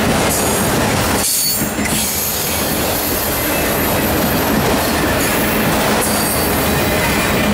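Freight train of auto rack cars rolling past: steel wheels on rail make a steady, loud rumble, with high-pitched wheel squeal coming and going. The sound dips briefly about a second and a half in.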